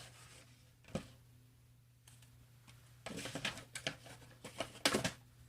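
Plastic phone case being handled and fitted onto a Samsung Galaxy Fold: a single click about a second in, then a quick run of clicks and scrapes between about three and five seconds, over a faint steady hum.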